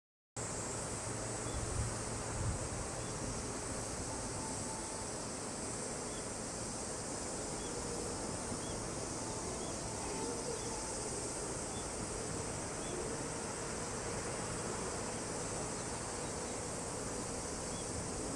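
Summer insects buzzing in one high, steady, unbroken drone, over a low hum, with a few faint short chirps.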